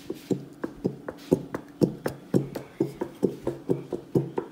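White school-glue bottle held upside down and squeezed, giving a quick, even run of wet squelches as the thick glue and air push out of the nozzle, about four or five a second.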